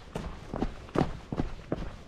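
Quick footsteps on a rocky trail, about three strides a second, at a jogging pace. Each footfall lands as a sharp thud.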